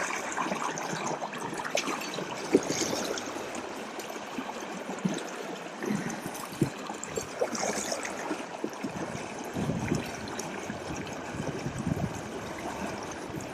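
River water flowing and trickling, a steady rush with scattered small clicks and knocks over it.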